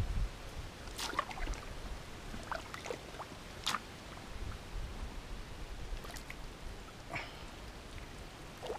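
Faint, scattered small splashes and sloshes of muddy pond water as hands feel around in the mud for fish, a few separate little splashes spread irregularly over several seconds.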